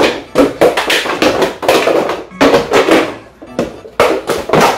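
Boxed iPhones, cardboard retail boxes, tossed and dropped in a failed juggle: a rapid, irregular run of about ten loud thuds and taps as they knock together and land.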